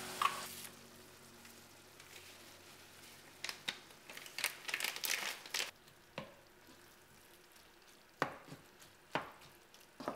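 Ground meat frying in a skillet with a faint sizzle, stirred and scraped with a wooden spatula in several short bursts of strokes.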